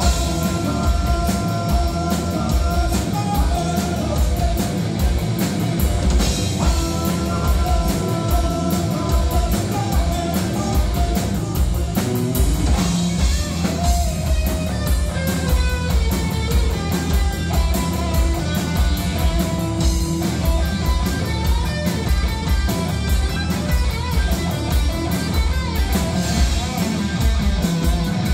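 Live rock band playing: electric guitar, bass guitar and a drum kit, with a steady beat throughout.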